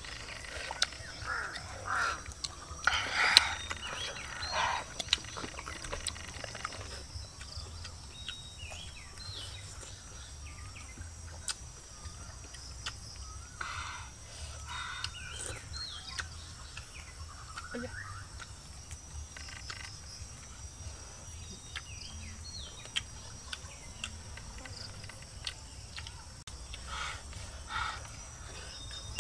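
Outdoor ambience: a steady high-pitched insect drone with scattered short animal or bird calls and clicks, busiest and loudest in the first five seconds.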